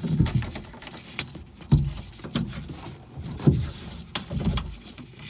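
Hands handling wiring and plastic parts inside a car door: scattered light clicks and rustles, with a few dull knocks.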